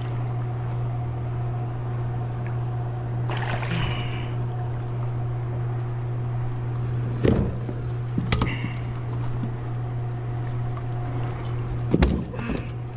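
A big blue catfish being hauled into a kayak by hand: a splash about three and a half seconds in, then sharp knocks against the hull three times, over a steady low drone.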